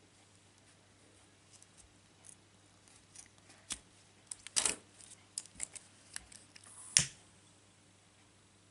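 Scissors snipping and handling nylon paracord: scattered faint snips and clicks, the loudest about halfway through. Near the end a single sharp click as a disposable lighter is struck to melt the cut ends.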